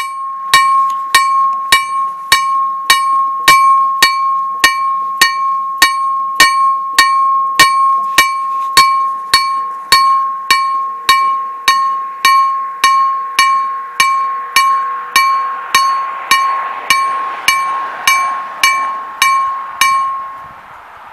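KLD-40 electric level-crossing bell on an SPR-1 ZWUS crossing, its hammer striking the bell just under twice a second in a steady warning ring, stopping about 20 seconds in. A rushing noise swells under the strokes in the last few seconds.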